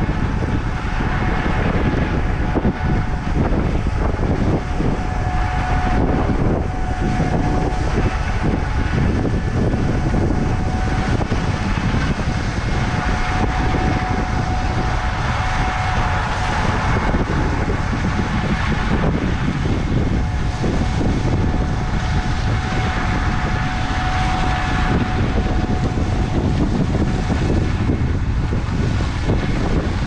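Wind buffeting the microphone over the steady drone of a Gleaner S77 combine harvesting corn across the field, its machine whine swelling and fading as it works.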